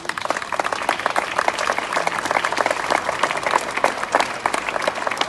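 Audience applauding: many hands clapping densely and evenly.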